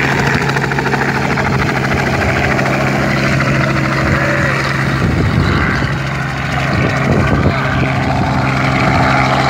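Light helicopter's engine and rotor running steadily with a fast, even blade chop as it lifts off and flies away. An irregular rumble of wind on the microphone comes in during the second half.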